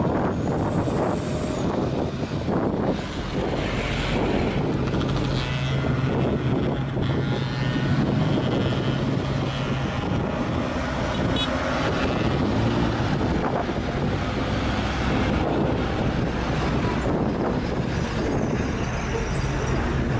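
Heavy diesel truck engines running up a steep grade: a steady low engine drone over road and tyre noise.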